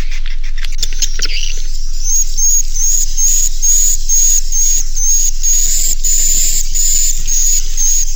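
Swiftlet roosting-call lure recording (suara inap) played back for edible-nest swiftlets: a dense high twittering chatter with a short high chirp repeating about twice a second from about two seconds in. A steady low electrical hum runs underneath.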